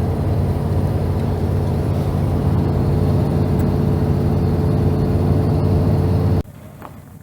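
Vehicle engine and road noise heard from inside the cab while driving: a steady low rumble that cuts off suddenly near the end, leaving a much quieter background.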